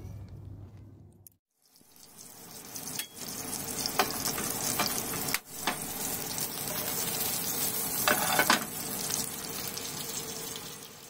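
Wiener sausages sizzling in oil in a frying pan: a steady hiss that starts about two seconds in, with a few sharp clicks and pops through it.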